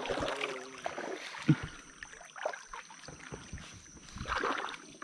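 Water splashing beside a plastic kayak as a just-released traíra (wolf fish) thrashes away at the surface, then water lapping at the hull with scattered light knocks and another short splash about four seconds in.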